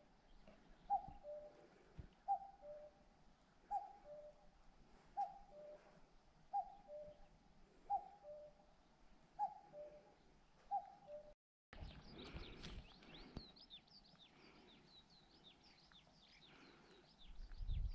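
A bird repeats a two-note call, a higher note then a lower one, about every second and a half, eight times. After a cut, a small bird sings a quick, high twittering song, and wind buffets the microphone near the end.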